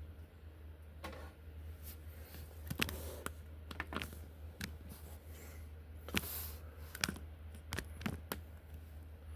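Scattered clicks and light handling knocks, as of buttons being pressed and small things handled, over a steady low hum.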